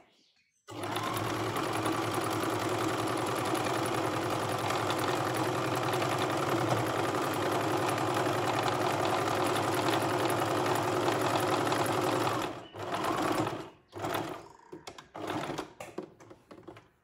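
Electric domestic sewing machine stitching a hem around a cotton pajama leg on its free arm. It starts abruptly about a second in and runs at a steady speed for around eleven seconds, then stops and gives a few short bursts as the seam is finished off.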